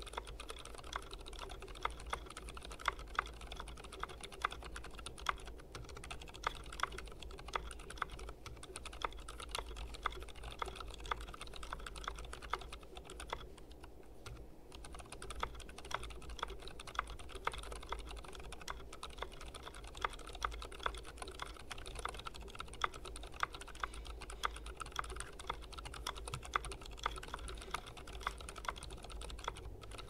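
Continuous typing on a Tokyo60 custom mechanical keyboard with Gazzew U4 Boba silent tactile switches, lubed with 205g0 and filmed, under Milkshake-clone keycaps: a dense, fast run of key presses with a brief pause about halfway.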